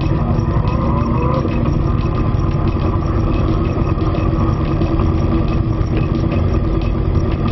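Motorcycle engine running at low speed in slow traffic, with steady road and wind rumble on the bike-mounted camera's microphone. A short rising whine comes about a second in.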